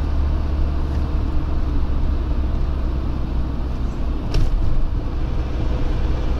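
Truck engine drone and road noise heard inside the cab while driving, a steady low rumble under an even hiss. A brief sharp click or knock sounds about four and a half seconds in.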